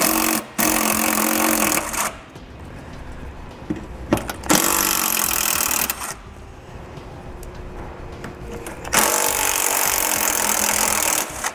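Cordless power tool with a 10mm socket running in three bursts of about one and a half to two seconds each, backing out the three radiator-support bolts, with a few light clicks of the socket being set on the next bolt between runs.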